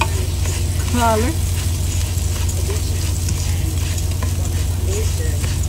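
Rice and chopped peppers frying in oil in a pot while a spatula stirs and scrapes them: a steady light sizzle with scraping strokes, over a steady low hum.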